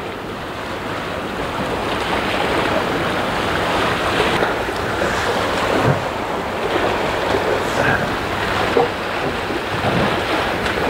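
Steady rushing wash of wind and water around a small boat's hull, with no clear pitch or rhythm.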